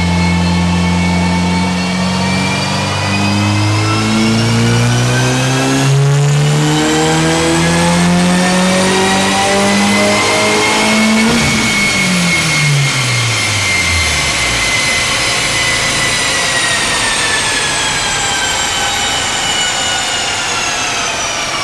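2022 Subaru WRX's turbocharged 2.4-litre flat-four, running a BNR G30-770 turbo on a stock motor, making a wide-open-throttle dyno pull: the engine note climbs steadily in pitch for about eleven seconds, then drops away quickly as the throttle closes. A high whine peaks with it, then falls slowly through the rest as the wheels coast down on the dyno rollers.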